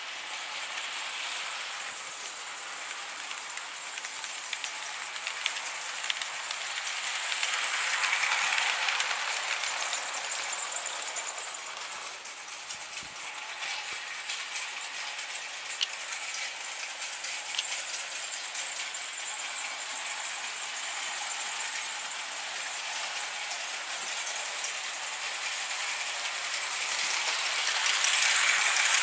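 HO-scale model trains running on the layout's track: a steady running sound that swells louder about eight seconds in and again near the end, as a train passes close. The last swell is the blue Pacific steam locomotive going by.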